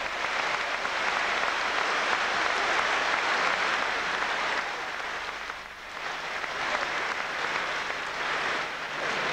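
Audience applauding, strongest in the first half, easing briefly about six seconds in and then going on more weakly.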